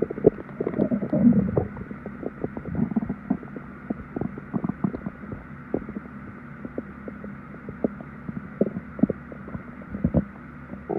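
Stomach growling: irregular low gurgles and rumbles, busiest in the first second or two, over steady background noise.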